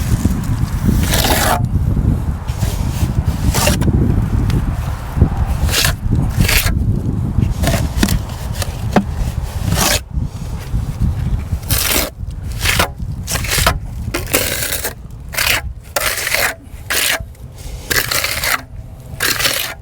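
Repeated scraping strokes over a fresh hydraulic-cement patch on a concrete foundation wall, as the patch is worked and smoothed by hand. The strokes become shorter and more separate about halfway through, over a steady low rumble.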